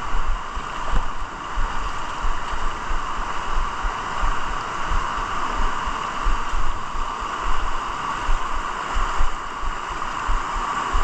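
River water rushing and splashing over boulders, a steady loud hiss, with irregular low thumps on the microphone.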